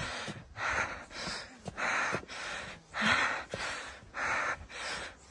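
Heavy, quick breathing of the person holding the camera, about two breaths a second: panting from hurrying uphill on foot.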